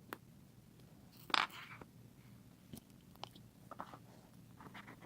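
Small screwdriver scraping old screen adhesive out of an iPad Air's frame: faint, irregular scratches and clicks, the loudest about a second and a half in.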